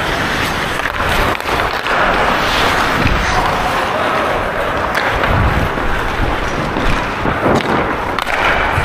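Hockey skate blades scraping and carving on rink ice as a player skates, a steady rushing noise with a few sharp knocks.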